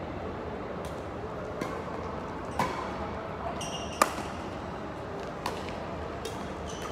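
Badminton rackets striking a shuttlecock during a doubles rally: a series of sharp pops with the hall's echo, the loudest about four seconds in on an overhead hit.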